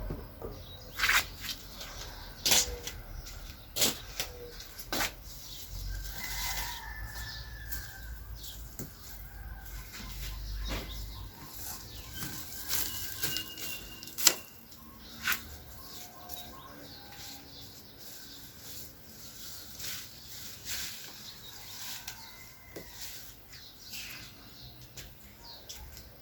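Birds flapping their wings, with sharp clacks at irregular moments and a few faint short calls; the loudest clack comes a little past the middle.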